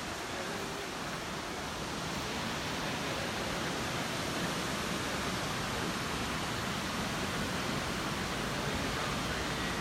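River water rushing over rocks in shallow rapids, a steady rush that grows a little louder a few seconds in.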